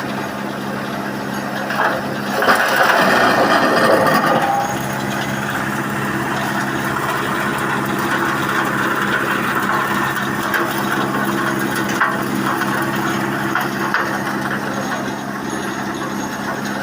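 Wood crusher machine running steadily with a low hum, with a louder burst of wood being crushed and shredded about two and a half seconds in that lasts around two seconds, and a few sharp knocks later on.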